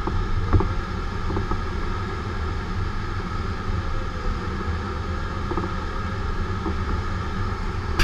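Steady rush of air over a glider's canopy in flight, heard inside the cockpit, with a few light clicks.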